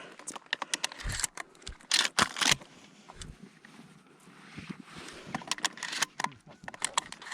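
Rustling, scraping and small sharp clicks of gear or clothing being handled close to the microphone, coming in scattered clusters.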